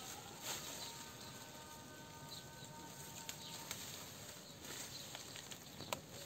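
Faint rustling of leaves and a plastic IV fluid bag as it is hung from a tree branch, with a few light clicks and one sharper tick near the end.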